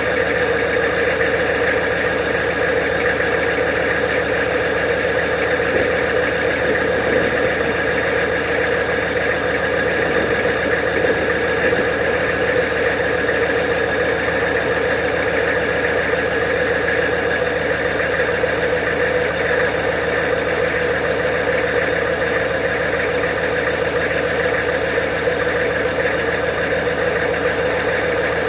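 Straight-piped 6.5-litre Detroit Diesel turbo-diesel V8 running steadily, with no revving.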